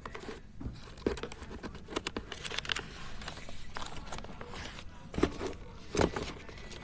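Sheets of paper rustling and being handled close to the microphone, with irregular crinkles and sharp taps; the loudest handling comes about five and six seconds in.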